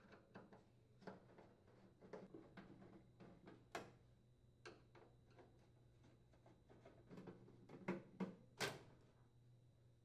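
Faint clicks and scrapes of a Phillips screwdriver turning out screws from a microwave's metal panel, with a few louder knocks of hand and tool on the sheet-metal housing near the end.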